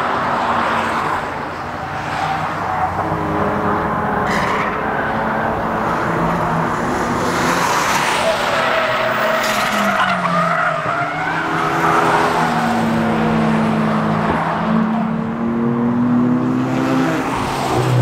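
Several road cars cornering on a race circuit one after another: engine notes falling and rising in pitch as they brake into and accelerate out of the turn, with tyres squealing through the corner.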